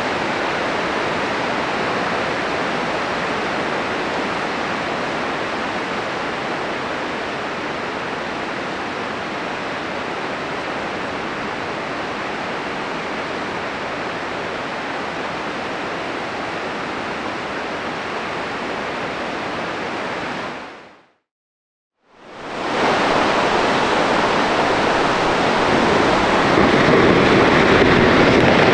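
Steady rushing noise of wind and water. It fades out to silence for about a second just after two-thirds through, then fades back in louder, with wind on the microphone near the end.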